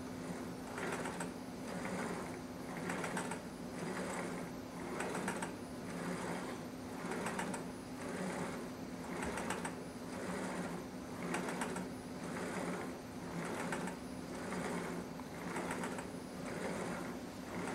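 Small electric motors of a scale-model crane rig on a pitching motion platform, whirring in surges about once a second as the platform tilts back and forth, over a steady low hum.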